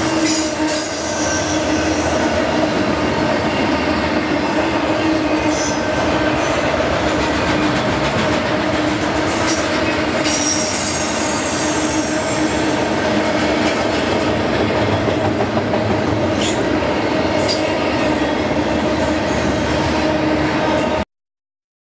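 Double-stack intermodal freight train's cars rolling past, a steady rumble of steel wheels on rail under a steady hum, with short high wheel squeals now and then on the curve. It cuts off suddenly near the end.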